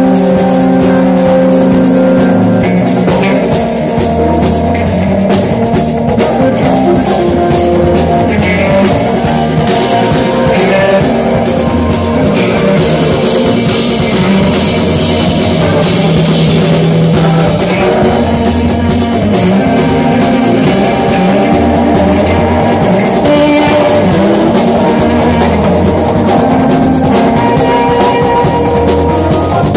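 A live jazz-rock band playing loud instrumental music: a drum kit with busy cymbal and drum strokes under an electric bass holding low notes, with guitar and keyboards.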